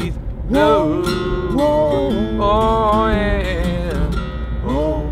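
Acoustic guitar strummed under a wordless sung melody of held notes that slide up and down in short phrases, over the low rumble of a moving car's cabin.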